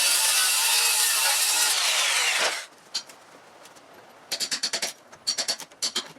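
A power tool running steadily, then switched off and spinning down with a falling whine about two and a half seconds in. Three short runs of rapid clicks follow.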